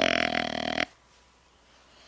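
A deer grunt: one short, loud grunt, under a second long, that cuts off sharply.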